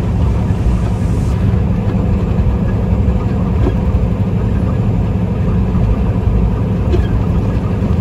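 Semi truck cruising steadily: a constant low rumble of engine and tyre noise heard from inside the cab.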